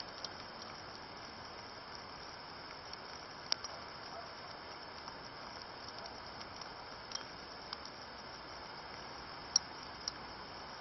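Steady hiss of rain falling on a stream and grass, with a few sharp ticks scattered through it, the loudest near the end.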